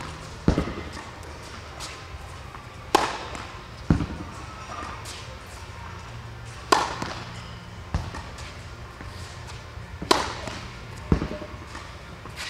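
A tennis racket striking the ball hard on overhead smashes, three sharp cracks a few seconds apart, each followed about a second later by a duller thud of the ball landing, echoing in an indoor tennis hall over a steady low hum.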